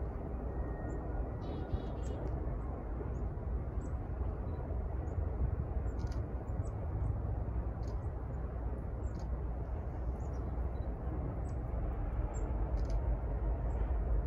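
Low rumble of a distant diesel locomotive approaching, growing slightly louder near the end, with a few short, high chirps scattered over it.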